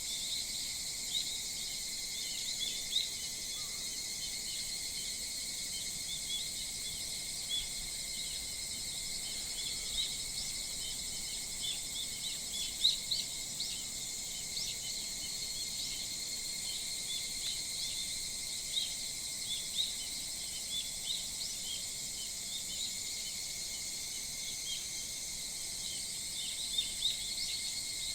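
Dawn chorus of insects and birds: a steady, high insect drone throughout, with frequent short bird chirps and calls over it.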